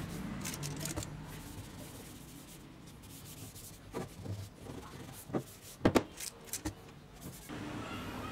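Cloth rubbing over a polished steel axe head, a steady wiping sound. In the second half come a few sharp knocks and taps, the loudest about six seconds in.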